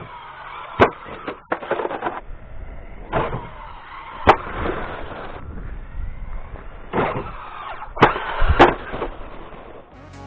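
Traxxas Hoss RC monster truck's electric motor whining in several short bursts, its pitch rising and falling as the throttle is worked. A few sharp knocks come in between.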